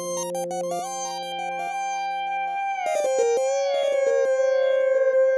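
Roland GAIA SH-01 synthesizer playing a preset: several notes sound together and glide in pitch from one note to the next. More notes join about three seconds in.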